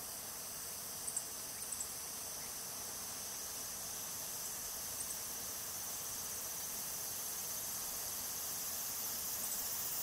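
Steady high-pitched chorus of insects trilling in the forest, with a few brief high chirps about a second in, near two seconds and around five seconds.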